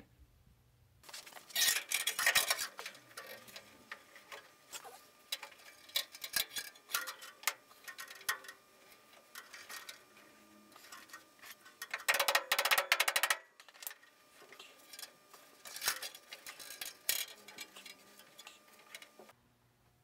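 Metal fuel line being worked into its clips under the car's floor pan: irregular clicks and taps of metal, with two longer spells of louder scraping, about two seconds in and again about twelve seconds in.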